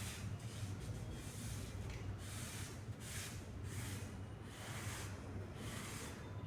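Cloth wiping back and forth over a steel weld surface, cleaning off dust before penetrant testing: repeated scrubbing strokes about twice a second. A steady low hum runs underneath.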